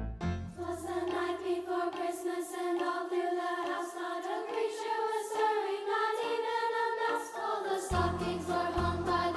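A school choir sings long held notes in a seasonal choral song. A low accompaniment is heard at the start, drops away, and returns near the end.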